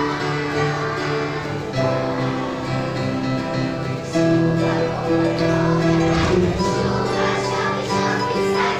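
Children's choir singing with acoustic guitar and piano accompaniment.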